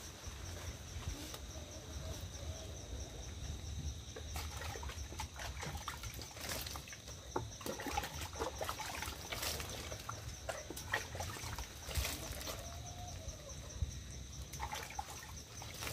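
Water splashing and trickling as hands scoop it from a bucket and wash the face, in small irregular splashes.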